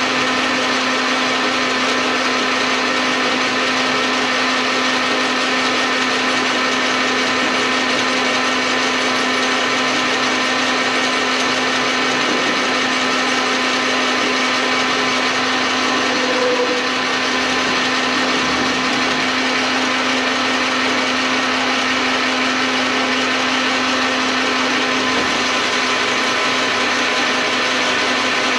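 An old metal lathe running steadily, with a constant motor and gear whine over a dense mechanical hiss. There is a short squeal a little past halfway.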